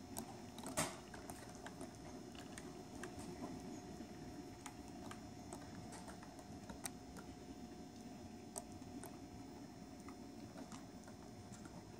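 Faint rolling rumble and light clicking of a model freight train's cars running on the track, with a short louder rattle about a second in.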